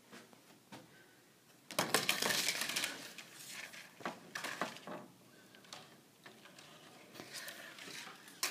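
Vertical window blind slats clattering and clicking against each other as they are pushed aside: a dense rattle lasting about a second, then a few separate clicks, and another burst of clatter near the end.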